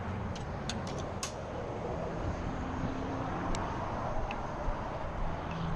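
Steady rumble of vehicle traffic and road noise, with a handful of light, sharp clicks in the first second or so and a couple more near the middle.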